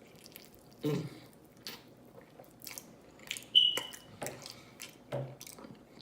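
Close-miked chewing and lip-smacking while eating honey barbecue chicken wings: irregular wet smacks and clicks about a second apart, the loudest about three and a half seconds in, carrying a short high squeak.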